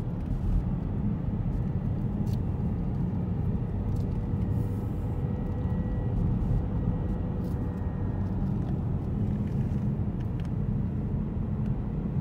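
Steady low rumble of a car driving, heard inside the cabin: tyre and engine noise, with a faint whine from about four to eight seconds in and a few light clicks.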